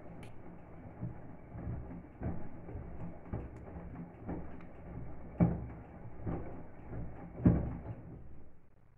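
Indesit front-loading washing machine in its main wash: the drum turns with a steady low hum while wet, soapy laundry tumbles and sloshes in the water, landing with soft thuds. Two louder thuds come past the middle and near the end.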